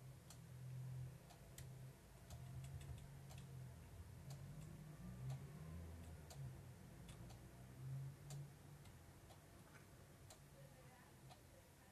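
Near silence: a faint low hum with scattered, irregular faint clicks.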